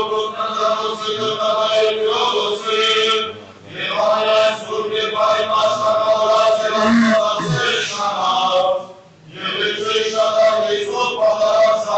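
Armenian liturgical chant sung in long, held phrases, with short breaks about three and a half and nine seconds in.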